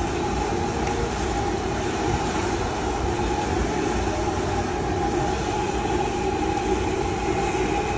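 Large wok of hot oil sizzling steadily as a big batch of battered banana fritters deep-fries.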